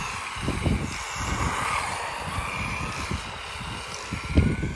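RC car driving on tarmac, its motor whining and wavering up and down in pitch as the throttle changes, with a rising whine near the end. A low, gusty rumble, likely wind on the microphone, sits under it.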